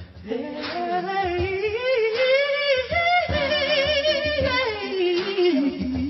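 Soul music: a singer holds one long note with a wide vibrato, rising at the start and falling away near the end, over the band's bass and drums.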